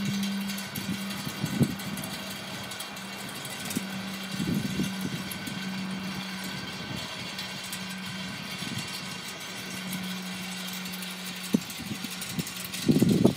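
Wind gusting against the microphone on a windy day, over a steady low hum that fades in and out; the gusts are strongest near the end.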